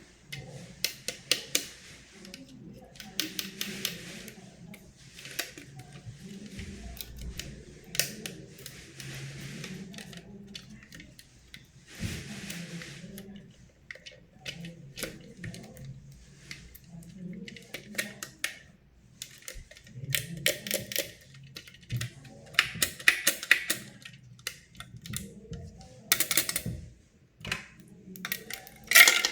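Small plastic toy pieces clicking and tapping as they are handled, with short bursts of packaging rustling and crinkling. It is loudest in a burst of clicks near the end.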